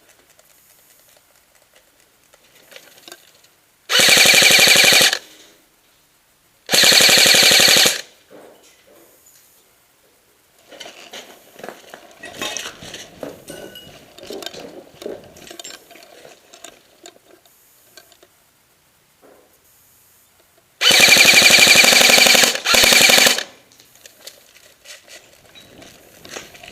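Airsoft gun firing full-auto in four bursts of about a second each, a rapid even rattle of shots: two bursts a few seconds apart, then two back to back near the end. Softer rustling and scuffling between the bursts.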